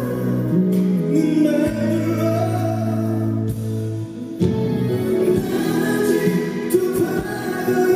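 A Korean pop ballad performed live in concert: a vocalist holds long sung notes over the band's accompaniment.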